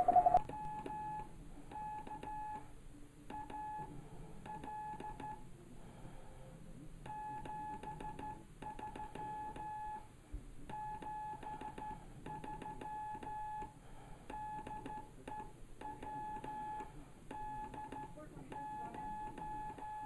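Hand-keyed Morse code (CW) from a ham radio: a steady single-pitch tone switched on and off in dots and dashes, a station calling CQ for Straight Key Night. Faint receiver hiss lies under it.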